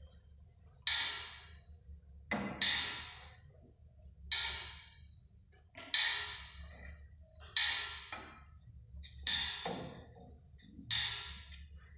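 Slow, evenly paced percussion strikes, about seven of them, one every second and a half to two seconds. Each is sharp and dies away over most of a second, over a faint steady hum.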